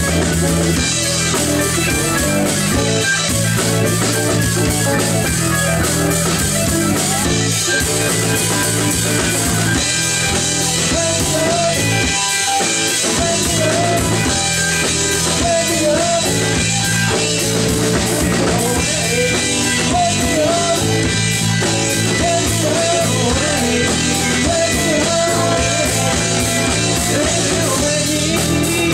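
Live rock band playing: electric and acoustic guitars with bass and a Sonor drum kit, loud and continuous, with a wavering melodic lead line through the middle of the passage.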